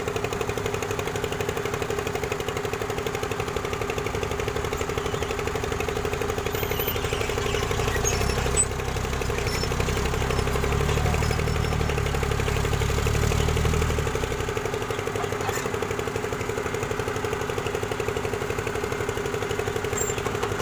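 Excavator's diesel engine running steadily, with a deeper, slightly louder stretch in the middle as the engine takes load while the machine works.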